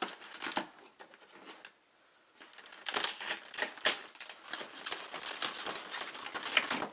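Cardboard packaging inserts and a plastic tray rustling, scraping and clicking as hands work a boxed toy part loose, with a brief pause about two seconds in.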